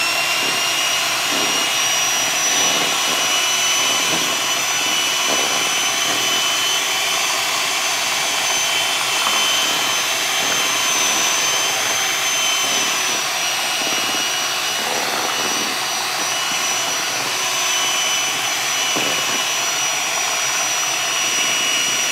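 Electric hand mixer running steadily with its beaters in cake batter: a constant motor whine that rises a little in pitch in the first couple of seconds and then holds.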